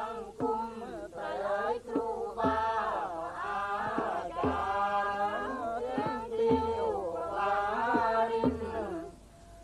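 A group of women singing a jriang nor kaew folk song together in unison, a chanted melody with long gliding notes, with a low thud about every two seconds beneath it.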